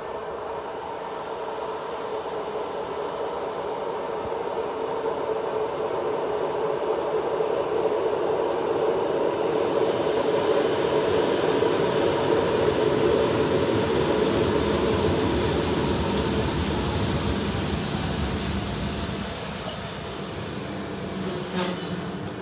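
Electric multiple-unit passenger train approaching along the track and pulling in to a stop, its running noise growing louder as it nears. A high, steady brake squeal sets in for the last several seconds as it slows, and a brief loud burst comes right at the end.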